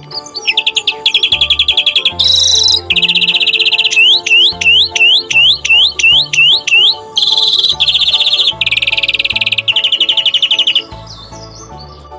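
Greenfinch song: blocks of rapid trills alternating with a run of about eight quick rising whistled notes in the middle, over background keyboard music.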